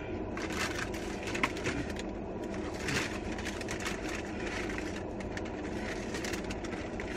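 Soft eating sounds, chewing and scattered crackles of food being handled, over a steady low rumble inside a car.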